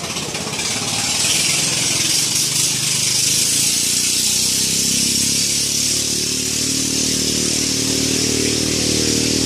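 Motor engine running steadily under a loud rushing hiss of wind or water; about halfway through, the engine's hum grows stronger.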